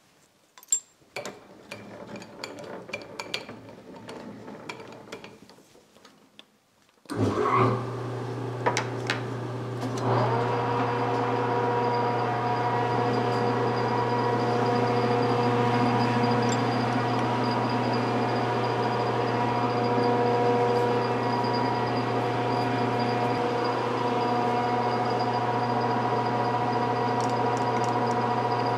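Metal-lathe tooling being handled with scattered clinks and clicks, then the lathe motor starts about seven seconds in and the spindle comes up to speed, running steadily with a deep hum and several steady higher tones. No cutting is heard yet.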